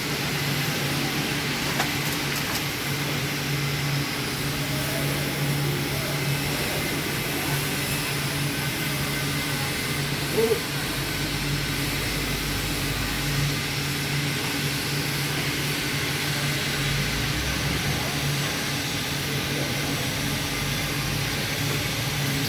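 Argon TIG welding on a root pass of 36-inch pipe: a steady arc hiss over a constant machine hum, with one brief sharp sound about ten seconds in.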